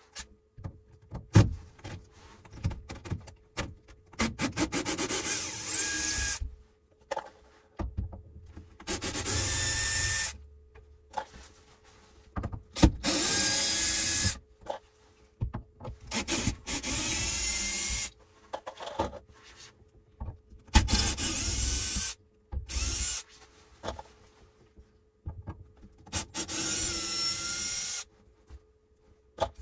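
Cordless drill-driver running in short bursts of one to two seconds, about five times, its whine rising as it spins up, while backing screws out of the wooden ceiling trim. Clicks and knocks of handling come between the bursts.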